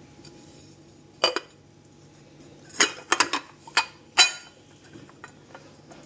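Ceramic mug and ceramic plate knocking and clinking together as the mug is turned upside down onto the plate to unmould it. There is a single knock about a second in, then several more in quick succession between about three and four seconds.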